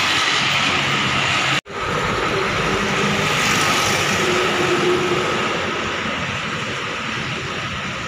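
Steady rushing noise of a locomotive-hauled passenger train going by at speed, slowly fading, broken once by a momentary dropout about a second and a half in.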